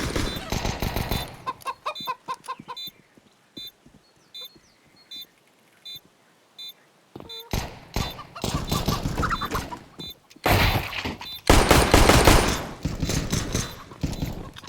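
Glock pistol gunfire in rapid runs of shots: a short burst at the start, a few scattered cracks in the middle, then loud, dense strings of shots through the second half.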